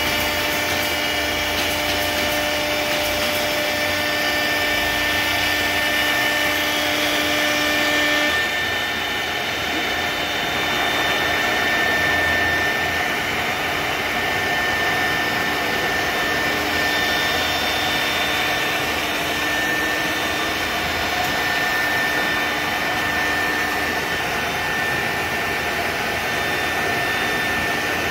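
2008 ShopSabre 4896 CNC router's 4 HP spindle cutting a plastic sheet, a steady whine over a constant roar of machine noise. About eight seconds in, a lower hum drops out and a higher whine takes over as the cut changes.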